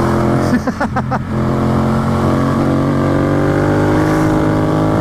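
Yamaha FZ-07's 689 cc parallel-twin engine running while the motorcycle is ridden, its revs rising gradually through the second half.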